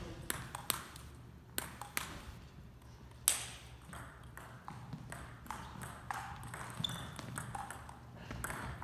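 Table tennis ball clicking off paddles and the table: a string of sharp, separate clicks, the loudest a little past three seconds in, with softer ones after.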